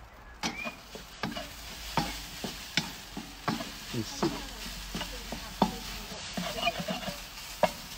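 Wooden spatula scraping and knocking against a seasoned metal wok as cooked rice is stirred, with the rice sizzling underneath. Irregular sharp scrapes come every half second or so over a steady frying hiss.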